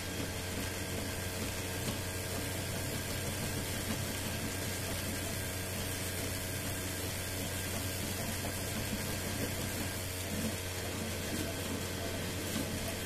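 Home-built 3D printer running a print: its stepper motors and cooling fans make a steady mechanical hum and whir with a low drone.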